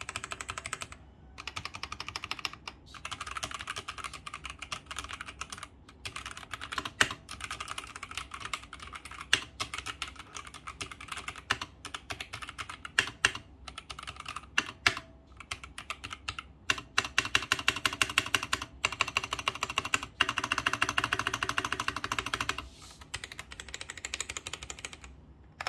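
Typing on an AKKO Designer Studio MOD001 mechanical keyboard with Gateon Brown tactile switches and Cherry-profile keycaps: steady runs of keystrokes with a few brief pauses and some louder single strokes. Past the middle, the keystrokes come in a fast, dense flurry for several seconds.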